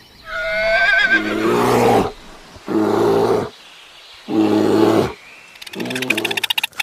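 Horse whinnying: one long call that starts high and wavering and drops to low tones, followed by three shorter low calls. A fast run of clicks begins near the end.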